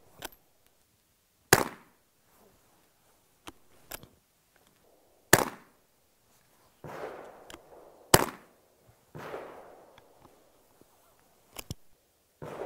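Henry Mini Bolt Youth single-shot .22 rimfire rifle firing: three loud, sharp shots a few seconds apart, with fainter clicks and knocks between them.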